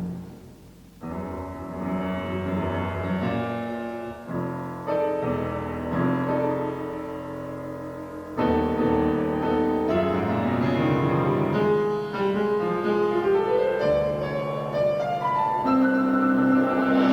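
Instrumental chamber music for a quintet: held chords with piano-like notes, coming in about a second in, growing louder about eight seconds in, then a climbing line of notes.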